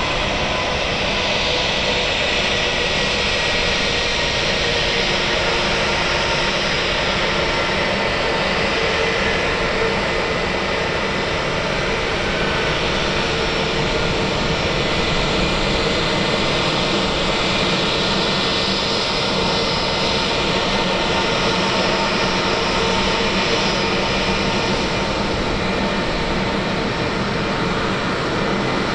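Airbus A321-200 jet engines running steadily as the airliner taxis in, a constant rush of engine noise with a faint whine on top.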